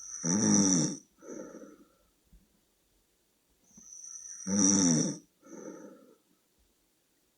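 A person snoring loudly: two snores about four seconds apart, each a loud pitched snore with a thin high whistle over it, followed by a shorter, softer breath.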